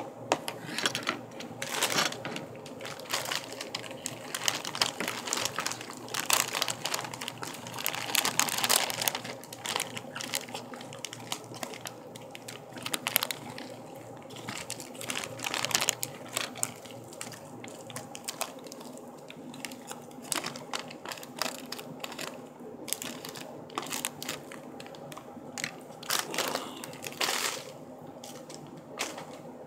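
A plastic bagged-salad bag crinkling and rustling in bouts as lettuce is shaken out onto a plate, with short clicks in between.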